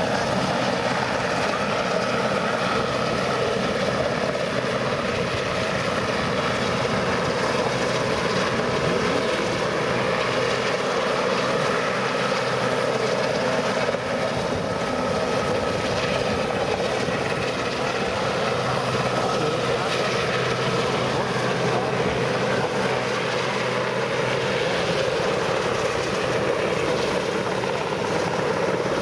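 Westland Sea King search-and-rescue helicopter hovering, its rotor and twin turbine engines running with a steady, unbroken drone.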